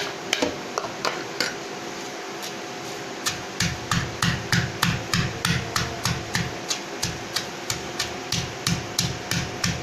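Spices (ginger, galangal and turmeric) being pounded with a pestle in a mortar for a coarse spice paste: a few scattered knocks at first, then a steady run of thudding strikes, about three a second.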